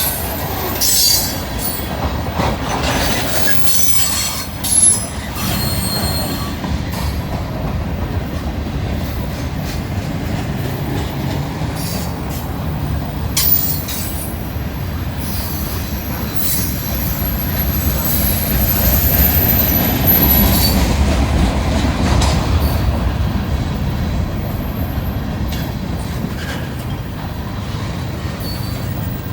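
Freight train cars rolling past with a steady low rumble and a thin, high wheel squeal that holds through the middle stretch. A few sharp knocks come in the first half.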